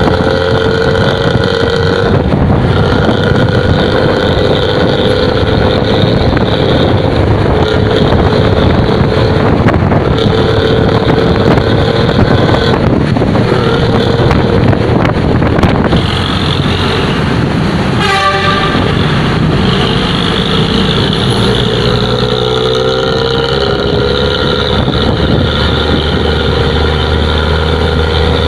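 Luragung bus's diesel engine running through a 'ngorok' (snoring) exhaust: a loud, steady rumble with a droning note that shifts in pitch now and then. A short pitched toot sounds about eighteen seconds in.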